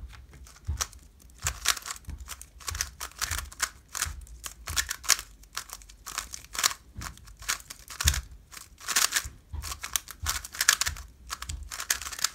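Rapid clicking and clacking of a 3x3 speedcube, an X-Man Tornado V2, being turned fast during a timed solve: quick bursts of plastic turning clicks with short pauses between them. The cube is freshly unboxed, heavily lubed and still tight.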